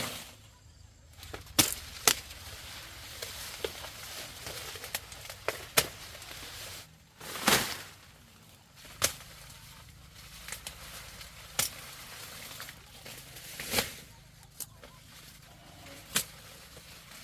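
About a dozen irregular sharp snaps and cracks, a couple of them drawn out into a short rustle, over a faint steady outdoor hiss.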